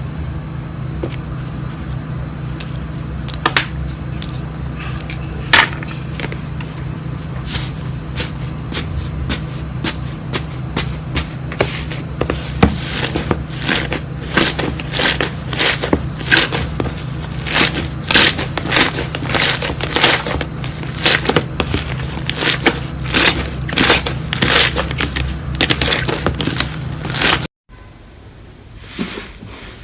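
Slime being pressed and stretched: a run of sharp clicks and pops as air pockets burst, coming faster and louder from about halfway, over a steady low hum. The sound cuts off abruptly near the end.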